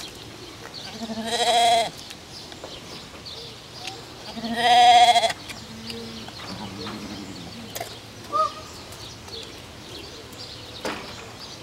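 Deer bleating, goat-like: two loud, wavering calls about three seconds apart, then a few fainter, shorter ones.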